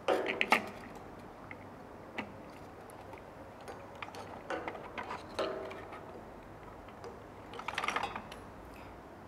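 Scattered small clicks and rattles of gloved hands handling a print head's flat ribbon cable and its plastic connector inside a UV printer's carriage, with a busier cluster near the start and again near the end.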